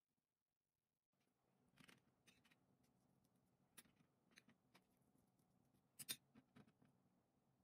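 Near silence with a faint low hum and a scattered handful of soft clicks and taps from hands working food and utensils at a cutting board, the loudest about six seconds in.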